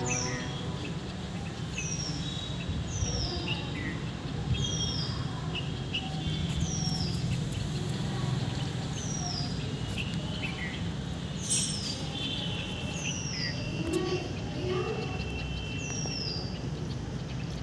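A bird calling over and over: a short, high note that falls in pitch, repeated roughly once every second or so, over a steady low outdoor rumble.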